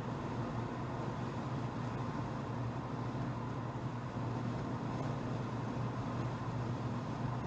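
Steady engine and road noise inside a moving car's cabin, a low even hum with tyre rumble.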